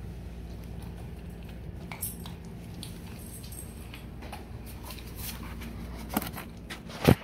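Alaskan Malamute eating off a tile floor: scattered small clicks and wet smacks of chewing and licking over a steady low hum, with one louder sharp smack about seven seconds in.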